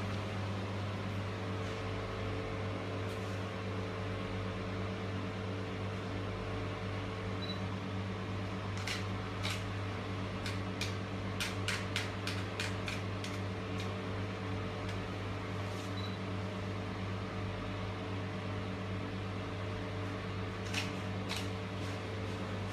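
Steady machine hum, with a quick run of sharp snapping clicks about nine to thirteen seconds in and two more near the end: a scar-removal laser firing pulses.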